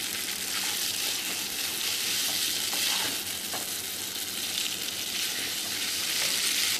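Noodles and vegetable strips sizzling in a hot pan as they are stir-fried and tossed: a steady frying hiss with a few light clicks.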